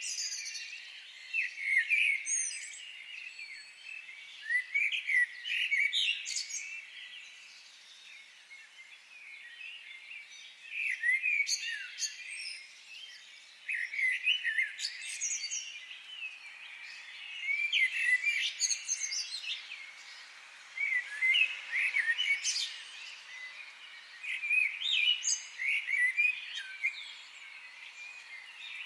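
Several birds singing, with bouts of quick chirps and trills every few seconds over a faint steady background hiss.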